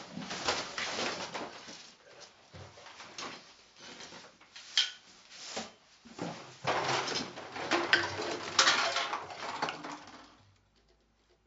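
Irregular clattering, knocking and rustling as a plastic bin and a pile of household junk are kicked and knocked over onto a hard floor. The sharpest bangs come around eight to nine seconds in, and the noise stops shortly before the end.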